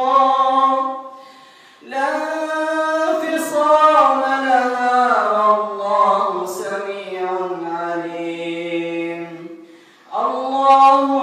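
An imam's solo male voice chanting Quranic recitation in long, slowly gliding melodic phrases, with two short breaths between phrases, one near the start and one near the end.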